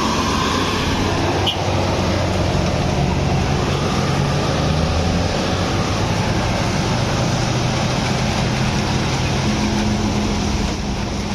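A large road vehicle's engine running steadily under load, with road noise, and its note rising slightly near the end.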